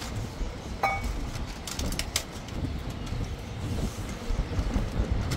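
Corrugated plastic conduit rustling and clicking as a solar cable is worked into it by hand, with a few sharp clicks in quick succession about two seconds in, over a steady low rumble. A brief high chirp sounds about a second in.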